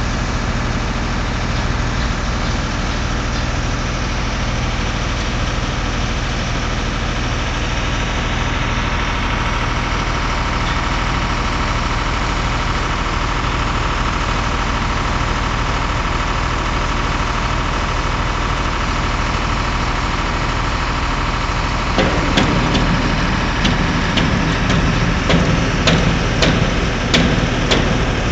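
An engine running steadily at idle, a constant hum with a few held tones. In the last several seconds irregular sharp clicks and knocks sound over it.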